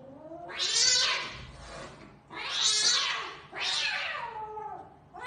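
Cat yowling in a standoff with another cat: three drawn-out, breathy cries about a second long each, their pitch gliding, with a short rising cry at the end.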